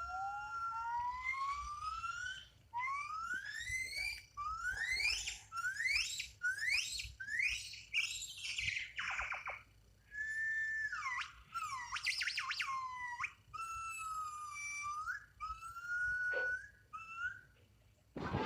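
An animal's high, whistle-like calls: a run of short calls that rise in pitch, about one a second, then several longer, more level calls.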